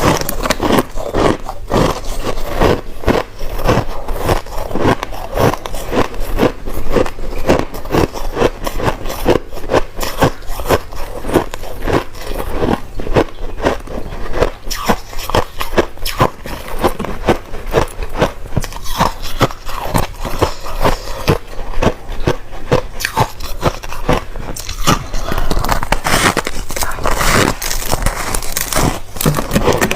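Crushed ice being bitten and chewed close to the microphone: a dense, continuous run of crisp crunches, several a second.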